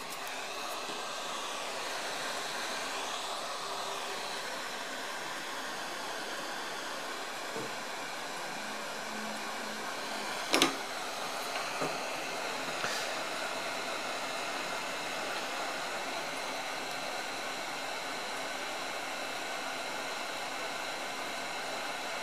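Hot air rework gun blowing a steady hiss of hot air onto a surface-mount chip to melt its solder. A sharp click about ten seconds in, and a couple of fainter taps just after.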